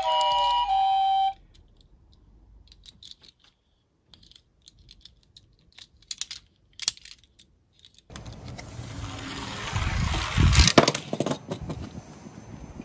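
Faint metallic clicks and taps of a die-cast Tomica toy police car being handled and its tiny door opened. Then the car rolls down a plywood slope, clattering loudest as it tumbles and comes to rest upside down. Electronic siren-like tones cut off about a second in.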